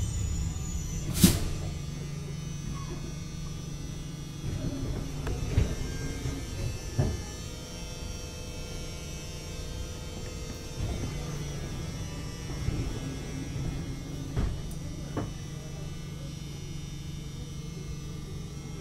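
Duewag B80C light-rail car standing at a stop: its electrical equipment gives a steady low hum, with a sharp click about a second in and a few fainter knocks later.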